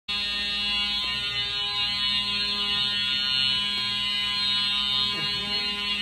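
Simplex fire alarm horns sounding in a steady, unbroken tone, set off by a cooking mishap.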